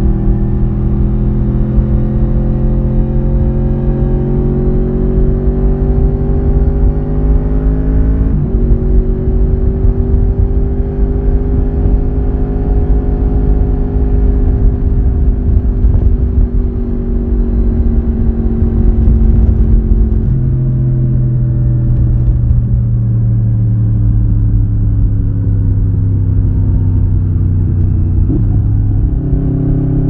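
Honda VFR750's 90-degree V4 engine and exhaust under way, heard from the rider's seat over a low rush of wind. The engine note climbs slowly, drops sharply at upshifts about eight and twenty seconds in, and jumps up again just before the end.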